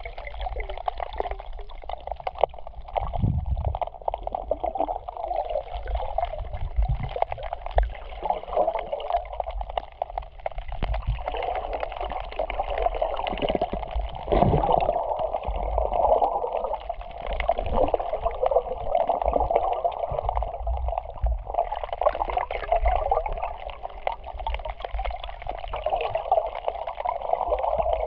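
Muffled water sloshing and gurgling heard underwater, with irregular low bumps against the microphone.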